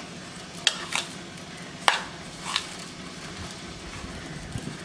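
A spoon clicks against a bowl four times while stirring idiyappam strings with grated coconut and sugar, with soft stirring between the clicks.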